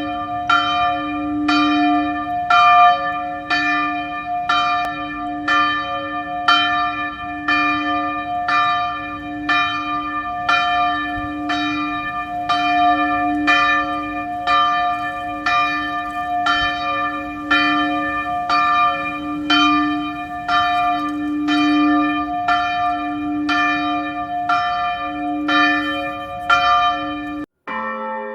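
A single church bell tolling, struck a little faster than once a second at one unchanging pitch, its hum ringing on between strokes. Near the end it cuts off abruptly and a different, lower-pitched bell starts ringing.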